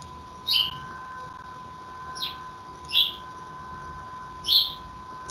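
Four short bird chirps, heard through a video call's microphone over a steady high whine.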